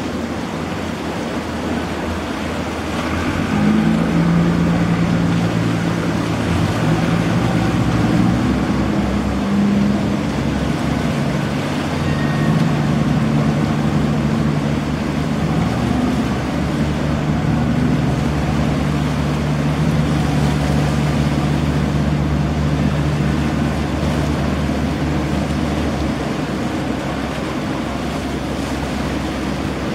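Ferry's engine running under power, louder from about three and a half seconds in and changing pitch a few times, over the rush of propeller wash churning the water at the pier.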